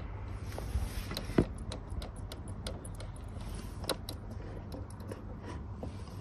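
Irregular small clicks and rattles as a car relay and its wiring are wiggled by hand, over a low steady hum. The power through it cuts in and out as it moves, the sign of a bad connection at the relay.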